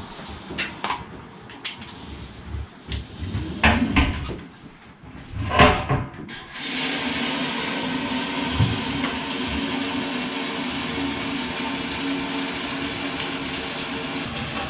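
Knocks and clatter of a fuel hose and nozzle being handled. About six and a half seconds in, a fuel pump starts and runs with a steady hum as gasoline flows through the nozzle into a wall-mounted fuel tank.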